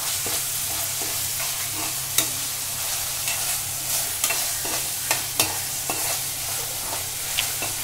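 Chopped onions sizzling in hot oil in a non-stick kadhai while a steel spatula stirs them, with the spatula scraping and clicking against the pan now and then. The onions are being sautéed on their way to golden.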